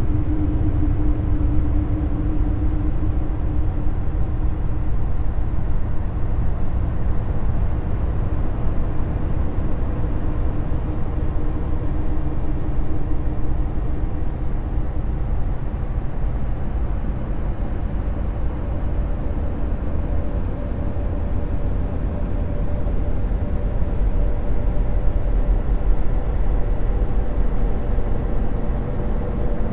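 Steady low rumbling drone presented as a 'space sound' of Jupiter's moon Callisto. A faint held hum fades out over the first half, and a slightly higher faint tone comes in about two-thirds of the way through.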